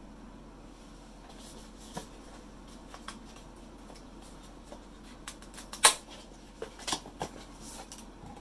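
Handling noises while unpacking a selfie stick tripod: light rustling of packaging and a scattered series of plastic clicks and knocks, the sharpest about six seconds in.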